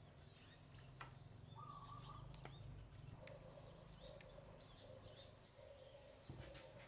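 Faint bird chirps and calls over a low steady hum, with a few soft clicks.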